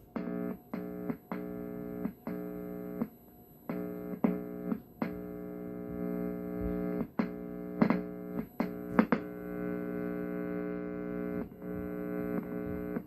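An old TV's speaker buzzing with a steady hum each time a hand touches the bare plug of a jack cable wired to its audio input: the body picks up mains hum and feeds it into the input. The buzz cuts in and out many times, with a click or crackle at each touch and release.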